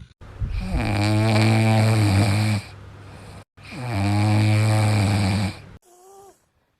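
A sleeping pet snoring loudly: two long snores of about two and a half seconds each with a low droning tone, a quieter breath between them, and a short faint squeak near the end.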